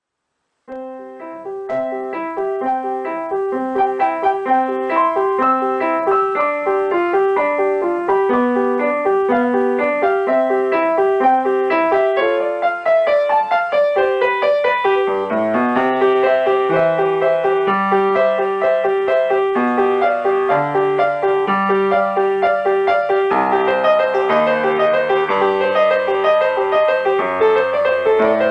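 Solo piano playing an étude, recorded live: a quick figure of notes repeating over and over, with a lower bass line joining about halfway through.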